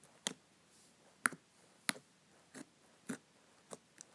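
Fluffy slime being handled and squished, giving a series of sharp little clicks and pops, about one every half second to second.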